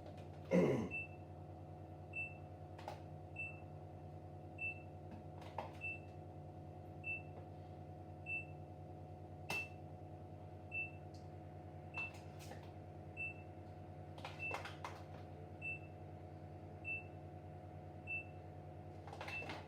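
A short high electronic beep repeating evenly about once every 1.2 seconds, typical of a kitchen appliance alarm, over a steady electrical hum. A few light knocks and clinks of utensils on a dish come in between, the loudest just after the start.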